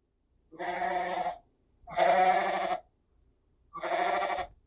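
Goat bleating three times, each bleat a wavering call of under a second with short silences between.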